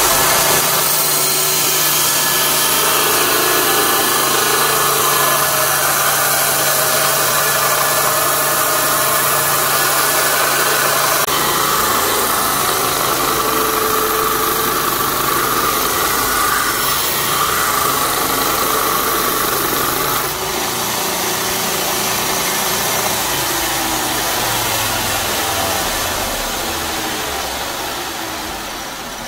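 Allwin belt grinder running with a steel knife blade, cut from a bearing race, pressed against its abrasive belt: a steady grinding hiss over the motor's hum, tapering off near the end.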